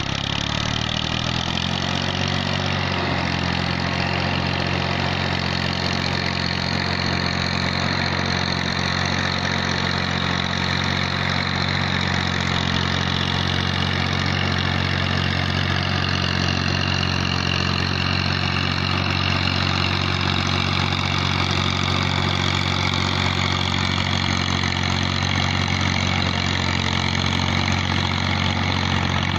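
Massey Ferguson 240 tractor's three-cylinder diesel engine running steadily under load as it drags a leveling plank (suhaga) through a flooded rice paddy to puddle it. The engine note shifts in the first few seconds, then holds even.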